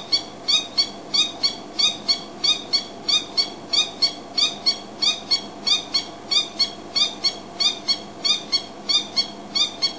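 A male Coqui francolin giving its territorial call: a long, steady series of short, high repeated notes, about three a second, that stops just before the end. The call announces the bird's territory to neighbouring francolins.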